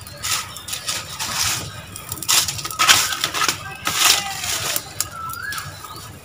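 Dry leaves and twigs rustling and crunching as they are raked with a stick and pushed into a leaf-and-wood fire in a brick cooking stove. The sound comes in several separate scraping, crunchy bursts.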